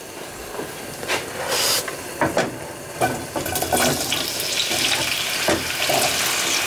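Parboiled potato slices tipped from a wooden board into oil at about 160 °C in a frying pan, sizzling and hissing. The sizzle builds over the first few seconds as more slices go in, then holds steady, with several knocks of slices and board against the pan.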